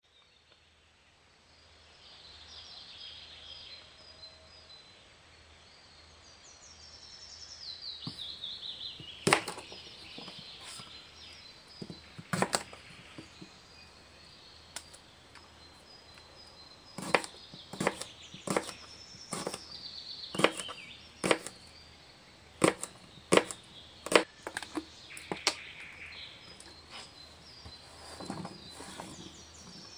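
Kitchen knife chopping eggplant on a plastic cutting board: a series of sharp, irregular knocks starting about nine seconds in. Birds chirp in the background throughout.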